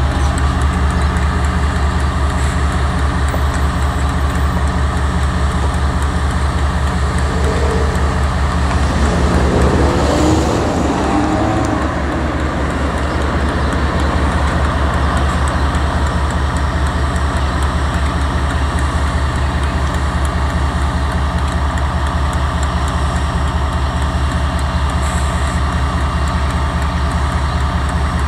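DL-class diesel-electric locomotive idling steadily at a standstill, a deep, even engine note, with a brief change in the note about ten seconds in.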